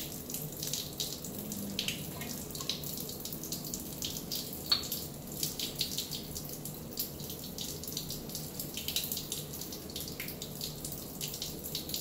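A lab sink faucet running a steady stream of water into the sink, splashing, with one sharp click a little under halfway through.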